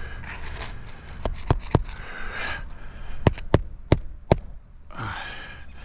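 Hammer knocking roofing nails into a replacement asphalt shingle: three quick strikes, then a pause, then five more. Between them come short scrapes of shingle being handled.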